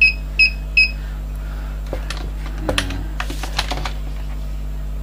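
Three quick beeps from a digital clamp meter, followed by scattered clicks and rattles as the meter is handled and clamped onto the battery cable, over a steady low hum.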